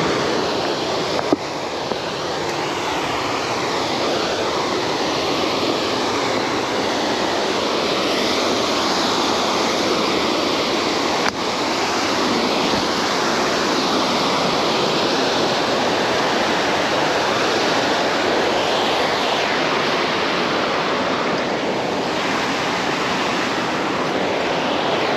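Fast-flowing water rushing steadily and evenly.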